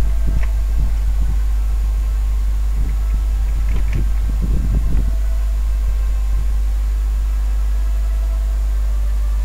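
Steady low electrical hum, with soft, irregular low bumps during the first half.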